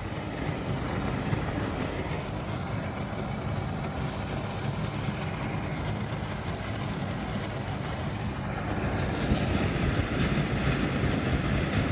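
Imasu centrifugal bathroom exhaust fan running, a steady whir of motor and moving air, getting louder in the last few seconds as the sound comes from right at the open fan housing.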